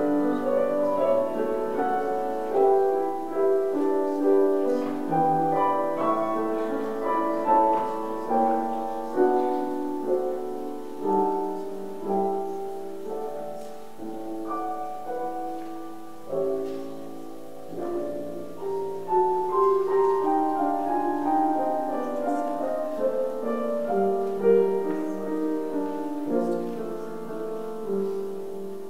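Piano playing a gentle piece, chords and melody notes struck and left to fade.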